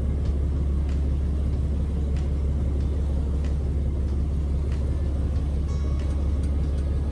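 Boat engine running with a steady low rumble, heard from aboard the moving boat.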